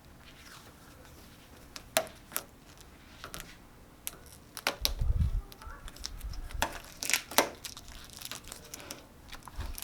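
Paper and tape crinkling and tearing, with scattered sharp clicks and a few low thumps near the middle, as masking for freshly painted markings is peeled off and crumpled.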